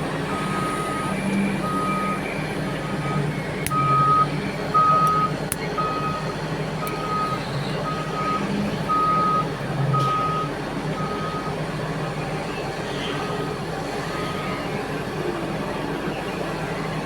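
Reversing alarm of a mining haul truck beeping at a steady pitch about once a second, over the steady running of heavy diesel engines; the beeping fades after about eleven seconds.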